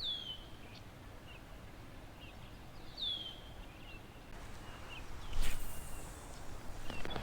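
Outdoor bird calls: two clear whistled notes sliding downward, about three seconds apart, with short chirps in between. A brief rustling noise about five and a half seconds in.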